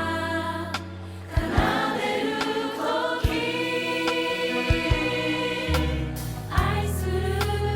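Background music: a song with choir-like singing over a steady beat and bass.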